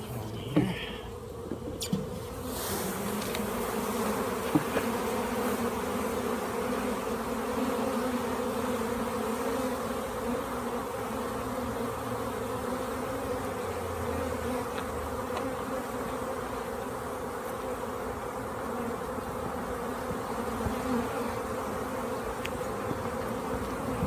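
Honey bee swarm buzzing as a dense, steady hum after being brushed off its cluster, with hundreds of bees in the air. A few knocks near the start, then the buzz swells about two seconds in and holds.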